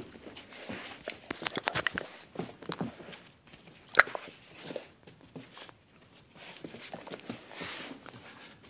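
Two Vizslas, an adult and a puppy, play-wrestling on carpet: scuffling paws, mouthing and rustling, with a run of quick clicks early in the stretch and one sharp knock about four seconds in.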